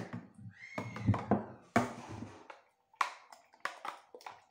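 A metal spoon stirring a thick, wet hair-mask mixture in a glass cup, scraping through it and clicking against the glass, with a quick run of sharp taps in the last second and a half.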